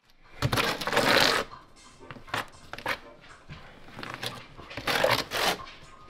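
Steel notched trowel scraping and combing thin-set mortar over a Ditra plastic uncoupling membrane, in several strokes. The longest and loudest stroke comes about half a second in and lasts about a second, followed by shorter scrapes.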